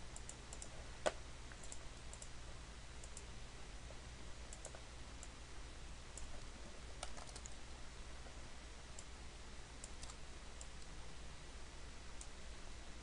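Scattered faint clicks of a computer mouse and keyboard, one sharper click about a second in, over a low steady hum.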